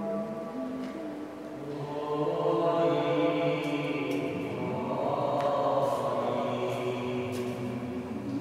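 Slow chant sung in long held notes that step from pitch to pitch, ringing on in the long reverberation of a large stone church nave.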